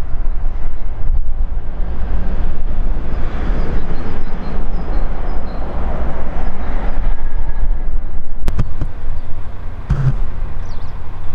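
A freight train hauled by a DB Class 152 electric locomotive rolling slowly past: a steady low rumble, with wheel and wagon noise swelling in the middle. Two sharp clicks come near the end.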